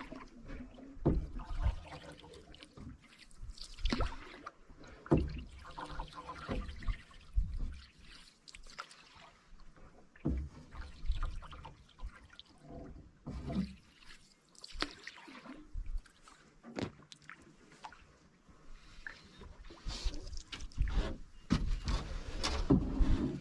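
Canoe being paddled: paddle strokes swishing and splashing in the water, with dripping and irregular sharp knocks and low thuds against the hull.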